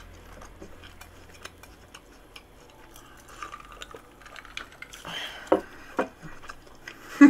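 A person chewing a crisp fried croquette, with small mouth clicks, then swallowing cola from a glass. The glass knocks down onto the wooden table after the drink.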